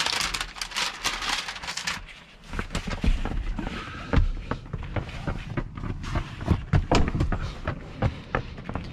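Steady hiss of a tint-removal steamer that stops about two seconds in, followed by a run of scattered knocks, clicks and handling thumps.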